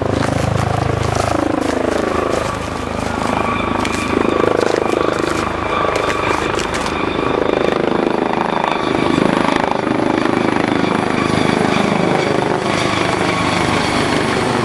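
Helicopter running: a steady high turbine whine over a low rotor drone.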